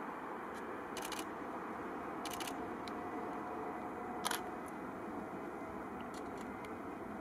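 Distant steady jet noise from the Airbus A321-231's IAE V2500 turbofans as it rolls along the runway, with quick runs of camera shutter clicks about one, two and four seconds in, the one at four seconds the loudest.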